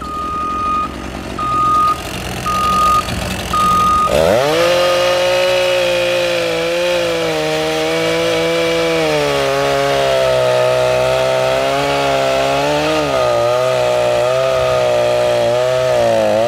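A reversing alarm beeps four times, about once a second; then, about four seconds in, a heavy machine's engine revs up and keeps working hard, its pitch rising and falling under changing load.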